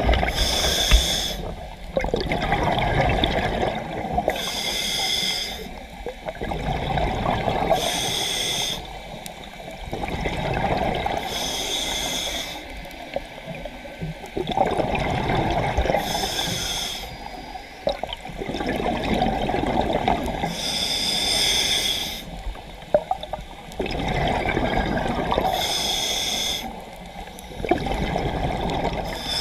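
A diver breathing underwater through a scuba regulator: a short hissing inhalation through the demand valve, then a longer burst of exhaled bubbles, repeating about every four to five seconds, seven breaths in all.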